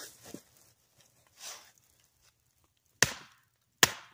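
Two sharp chops into firewood, about a second apart, near the end; the wood is being split into pieces for a tent stove.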